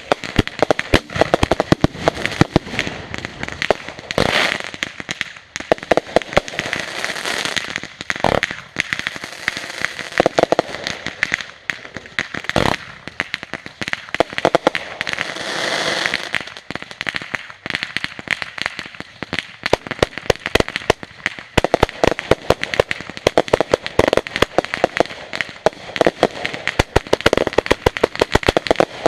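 Strings of firecrackers going off in a long, rapid, continuous rattle of sharp pops, with a few louder single bangs scattered through it, about four, eight and twelve seconds in.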